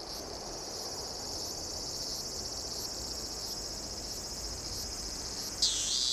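Steady, high-pitched insect chorus of ambient background. Near the end a second, louder insect call cuts in with a brief falling sweep.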